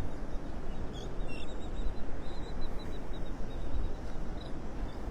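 Terns calling in short, high chirps, a dense run of them about two to three seconds in, over a steady rushing noise of wind and surf.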